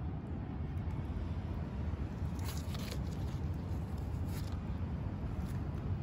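Steady low rumble of distant city traffic, with a few faint brief rustles a little over two seconds in and again past four seconds.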